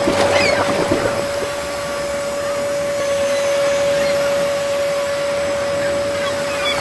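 A steady hum at one pitch over an even hiss, with a few short chirping glides in the first second.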